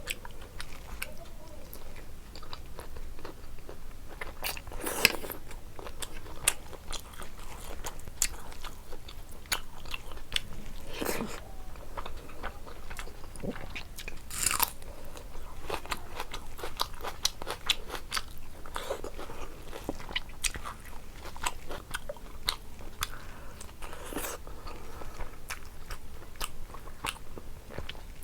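A person chewing and biting food, with many small wet mouth clicks and a few louder crunchy bites, about 5, 11, 14 and 24 seconds in.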